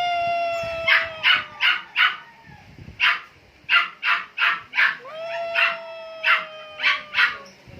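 A dog barking repeatedly in quick runs of three or four barks, about a dozen in all. Twice a long, drawn-out pitched call slowly falls in pitch: once at the start and again about five seconds in.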